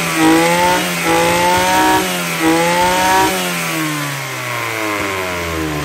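Maruyama MBS320 brush cutter's 32cc two-stroke engine being revved: the pitch climbs and holds, dips about two seconds in, climbs again, then falls away a little past halfway and settles into a steady idle.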